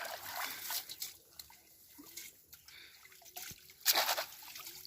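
Water splashing and sloshing in short irregular bursts. The loudest burst comes about four seconds in.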